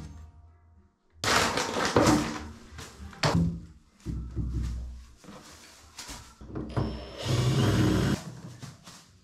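Knocks and rustling as a cardboard box and a wooden door are handled. Near the end a cordless drill-driver runs for about a second on a door hinge's screws, as the hinges are being replaced.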